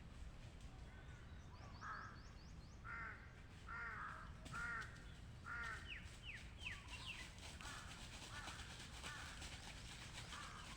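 Birds calling outdoors: one bird gives a series of calls at about one a second, and a few quick higher chirps and sweeps from another bird fall in between.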